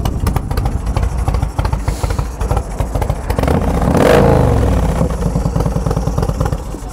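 2005 Yamaha Road Star's 1670 cc V-twin running through aftermarket long shot exhausts, with a steady pulsing beat. About three and a half seconds in, the throttle is blipped: the revs rise briefly and drop back to idle.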